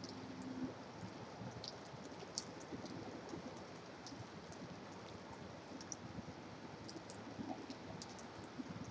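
Steady hiss of rain and distant highway traffic, with scattered light ticks.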